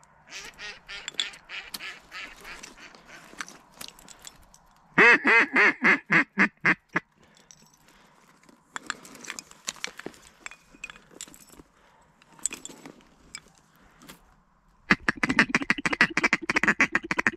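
Duck quacking. There are scattered softer quacks, then about five seconds in a loud run of about eight quacks, each a little softer than the one before. Near the end comes a fast, dense run of clattering calls.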